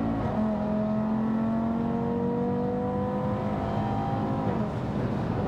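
Audi RS3 8V's turbocharged 2.5-litre five-cylinder accelerating hard through the gears, heard from inside the car, with the boosted sound of its aftermarket intake. The engine note dips with an upshift just after the start, climbs steadily for about four seconds, then drops near the end.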